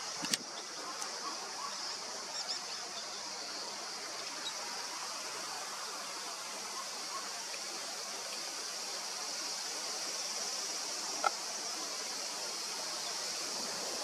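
Steady outdoor background hiss with a high, even drone. A sharp click comes just after the start and another about eleven seconds in. No clear bird call stands out.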